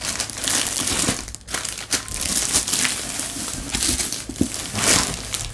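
Thin clear plastic bag crinkling and rustling as a rolled diamond-painting canvas is pulled out of it, in uneven waves with a short lull about one and a half seconds in.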